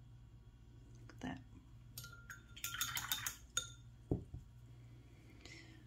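Quick light clinks and taps of hard objects being handled as the paintbrush is put down, mostly between about two and three and a half seconds in, with a soft knock before them and a dull thump just after.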